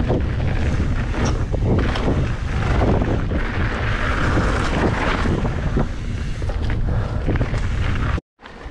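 Wind buffeting the microphone of a camera on a mountain bike in motion, over the hiss of tyres rolling on a dirt trail, with scattered knocks and rattles from the bike going over bumps. It cuts out abruptly near the end.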